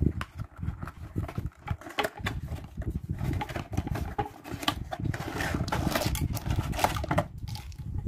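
Cardboard packaging being handled close to the microphone: irregular rustling, scraping and small clicks over a low rumble of handling noise.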